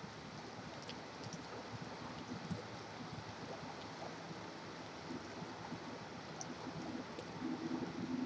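Rain and distant highway traffic make an even hiss, with scattered faint clicks of drips. A low, steady tone comes and goes in the last few seconds.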